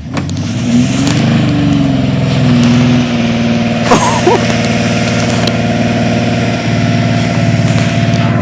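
Van engine revved up hard and held at steady high revs while the van is stuck in dirt. About four seconds in there is a brief wavering squeal.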